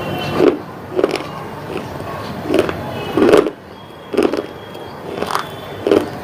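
Close-up mouth sounds of a person chewing and swallowing: about seven short bursts, each with a sharp click, at uneven gaps of roughly a second.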